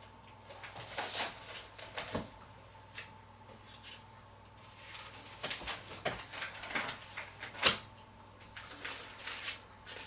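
Thin pages of a large Bible being flipped and turned by hand: a series of short papery rustles and flicks, the sharpest about three-quarters of the way through.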